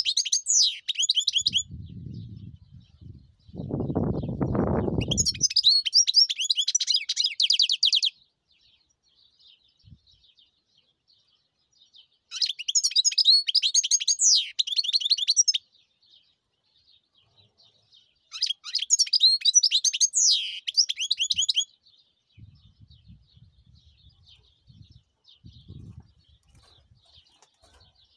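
Caged European goldfinch singing in four bursts of fast, high twittering, each a few seconds long with pauses between. A low rumble sounds under the first pause.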